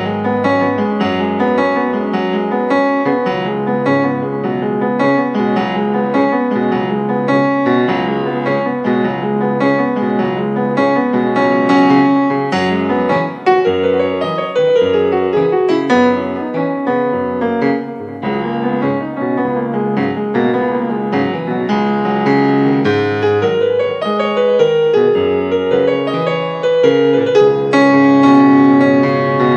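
Piano music played on a Yamaha MOXF keyboard synthesizer: a steady stream of notes over held bass notes.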